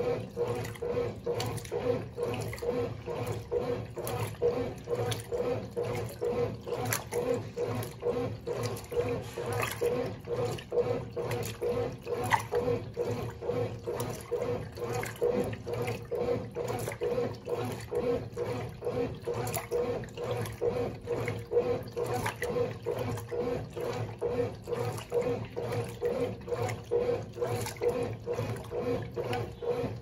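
Brastemp Baby Mondial 4 kg top-load washing machine agitating a load. Its Dual Action agitator swishes the water and clothes back and forth in a fast, even rhythm, over the steady hum of the motor. This is the wash stage, with the load rolling over well.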